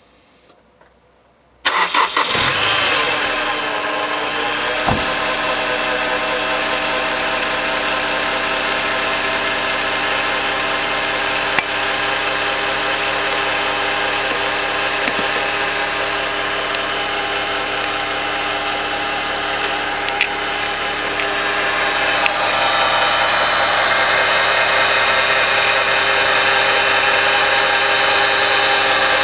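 Honda S2000's four-cylinder engine starting about two seconds in and settling into a steady idle, a little louder after about twenty seconds. It carries a noise that the owner attributes to the bearings.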